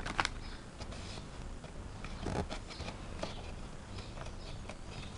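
Folded paper leaflet being handled and unfolded: soft rustling with scattered light crinkles and ticks, a little louder just after the start and again about two and a half seconds in.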